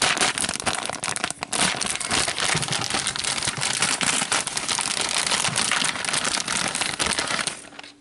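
Packaging of a model-kit issue being torn open and handled, a busy continuous crinkling and crumpling with many small crackles that eases off near the end.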